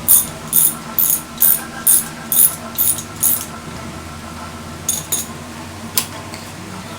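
Hand ratchet wrench clicking in steady strokes, about two a second, then stopping with a few single clicks later: a bolt being run down tight.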